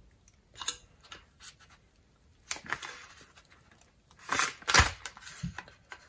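Utility knife blade scraping and cutting around the plastic outer sheath of a coax cable in short scratchy strokes, loudest just after four seconds in. A soft knock follows as the knife is set down on the table.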